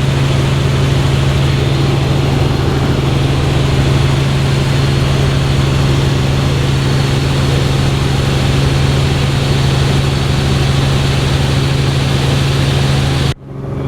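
Helicopter cabin noise in flight: a steady, loud low drone from the rotor and engine over a wide rushing hiss. It drops out abruptly for a moment near the end, then returns.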